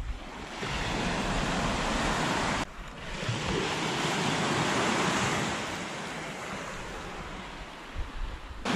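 Surf washing up a beach, with wind buffeting the microphone. The sound cuts off abruptly about a third of the way in. A wave then swells and falls away.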